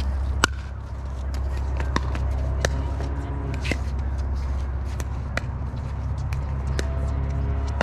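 Pickleball paddles hitting the hard plastic ball in a doubles rally: sharp, hollow pops at irregular intervals of about a second, over a steady low rumble.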